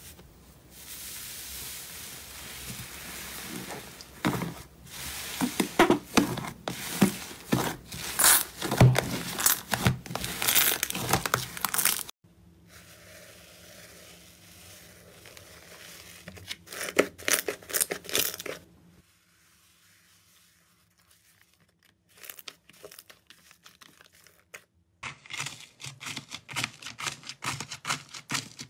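Hands squishing, poking and pulling apart slime, making runs of sticky crackling clicks and pops. The clicking is densest early on and again near the end, with a few seconds of near quiet past the middle.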